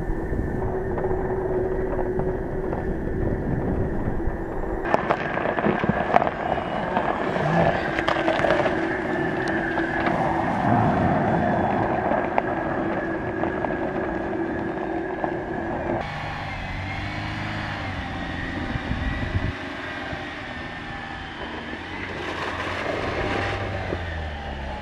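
Jeep Wrangler Rubicon 4xe driving off-road over snow. A steady whine runs through the first two-thirds, with tyre and body noise. After that a lower motor note rises and falls as it climbs.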